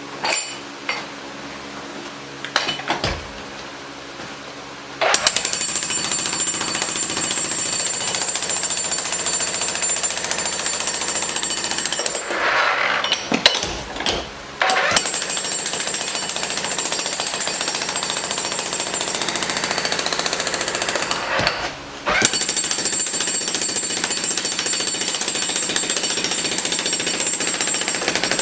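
Jackhammer breaking up a concrete curb, starting about five seconds in after a few knocks. It stops twice, for a couple of seconds around the middle with some clanks, and again briefly near the end, each time starting up again.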